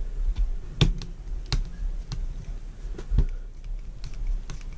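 Hex driver turning small screws into the two-speed servo mount on an RC crawler's plastic chassis: a scatter of small, irregular clicks and taps over a low steady hum.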